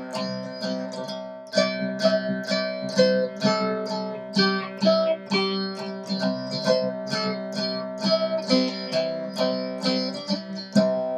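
Cigar box guitar playing an instrumental break: a quick picked melody, several notes a second, over steady ringing low notes.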